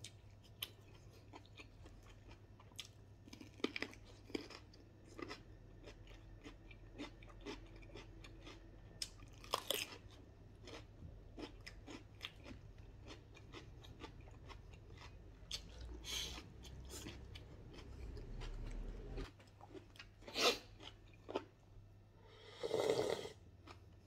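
Chewing and crunching while eating cooked wild bird and raw greens by hand: a run of small bites and mouth clicks, with a few louder crunches spread through it.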